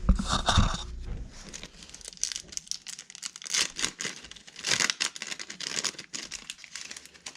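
Plastic packaging crinkling and tearing as it is opened, a long run of irregular crackles with a few louder rips.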